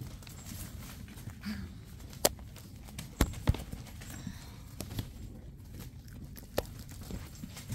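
Seven-week-old puggle puppies scuffling about a wire playpen right up against the phone. A handful of sharp clicks and knocks, the loudest about two and three seconds in, come as they bump and nose at the wire and the phone, over a low rumble of handling.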